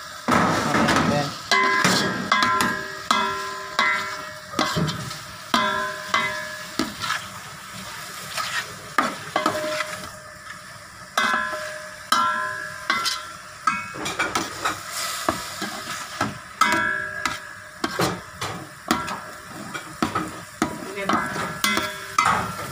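A metal spoon stirring sautéing chicken in a large aluminium rice-cooker pot. It scrapes and knocks repeatedly, about once a second, and the pot rings after each stroke, over a steady sizzle of frying.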